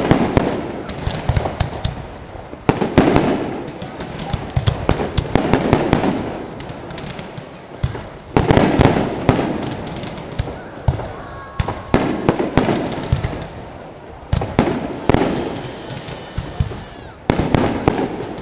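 Fireworks display: a rapid run of bangs and crackles, with a fresh salvo of loud bursts every two to three seconds.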